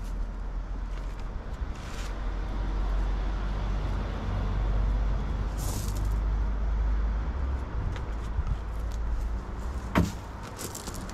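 A motor vehicle's engine rumble that swells and then fades, as traffic passing by. A single sharp knock comes near the end.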